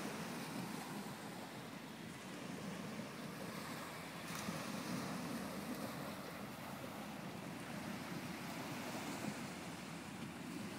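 Small waves washing steadily onto a shingle beach from a calm sea, rising and falling gently in loudness.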